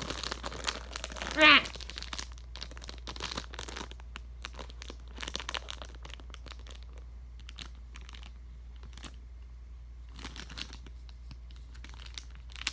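Plastic zip-lock bag packaging crinkling and rustling as it is handled and opened, in irregular short rustles and clicks. A brief, loud, high-pitched squeal comes about a second and a half in.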